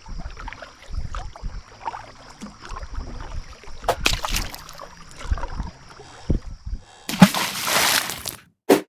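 Kayak paddling on a river: irregular paddle strokes and water gurgling and sloshing against the hull, over a steady faint high hum. Near the end a louder rush of noise lasts about a second, then the sound cuts off abruptly.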